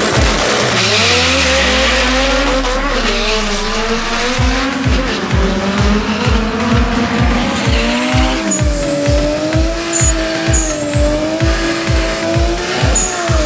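Electronic music over drag-strip sound. In the first few seconds there is a low falling pitch and a rush of noise from a car's launch, and about four seconds in a steady kick beat comes in. Through the second half, tires squeal with a wavering pitch, as in a burnout.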